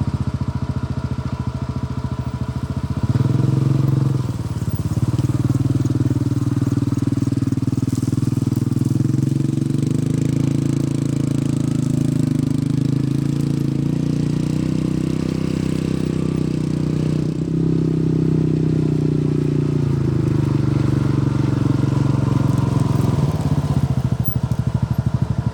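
John Deere 60G excavator's diesel engine running steadily. It revs up about three seconds in, holds there, and drops back about twenty seconds in.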